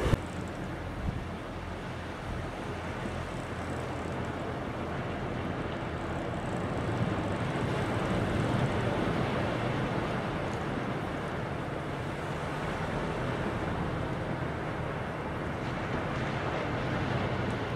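Surf breaking and washing up a beach, mixed with wind rumbling on the microphone; the noise swells and eases, loudest around the middle.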